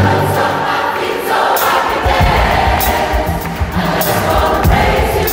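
Large gospel choir singing, many voices holding sustained chords over a live band with stage piano and bass guitar.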